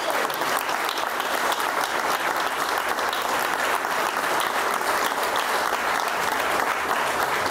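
A group of people applauding with steady clapping.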